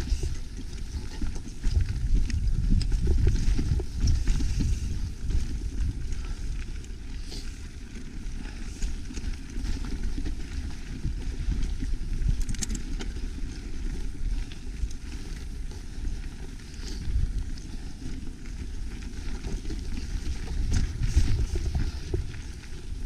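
Mountain bike being ridden over rough trail, heard through a bike- or body-mounted action camera: an uneven low rumble with scattered knocks and clatter from the bike over the ground.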